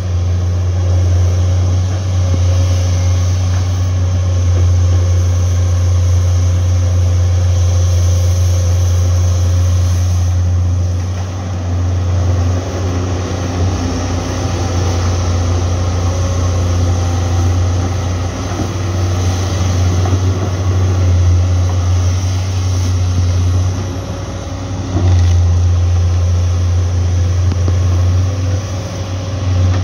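Diesel engines of Komatsu PC200 hydraulic excavators running steadily as they dig, a low drone that dips briefly twice and comes back up.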